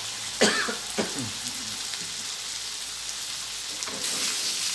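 Chicken pieces with curry paste sizzling in a stainless steel wok, a steady hiss. Two sharp knocks come about half a second and a second in, and near the end the sizzle grows louder as a spatula stirs the chicken.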